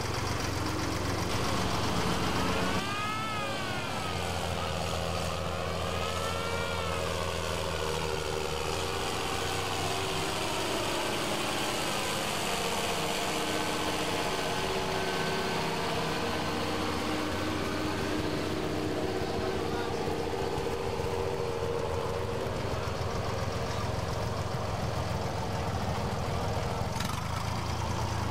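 John Deere farm tractor's diesel engine pulling a weight-transfer sled. It revs up and down twice near the start, then holds a long, steady drone under load as the sled is dragged down the track.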